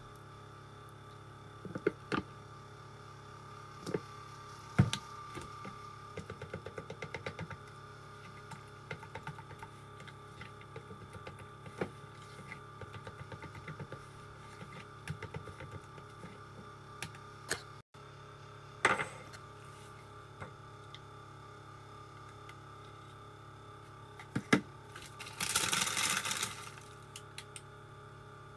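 A metal spoon stirring oatmeal in a plastic container, with scattered sharp clicks and quick runs of taps against the container, over a steady low hum. A short rustle near the end.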